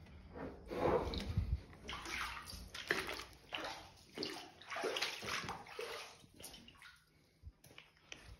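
Footsteps wading through standing water, a slosh with each stride at a steady walking pace, dying down after about six and a half seconds.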